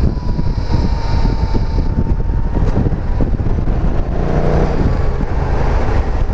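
BMW C650 GT maxi-scooter's parallel-twin engine running at road speed, with wind rushing over the microphone. The engine note swells briefly about four seconds in.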